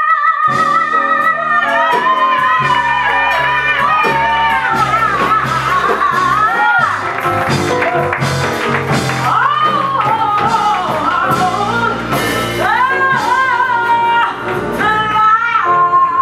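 A woman belting a show tune into a microphone, holding long notes with vibrato and sliding between pitches, over a live band's bass line.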